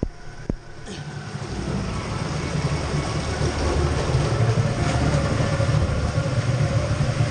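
Rider sliding down an enclosed fibreglass water slide tube: running water and the body on the slide surface make a low rumble that builds as speed picks up and then holds steady. Two sharp knocks about half a second apart come right at the start.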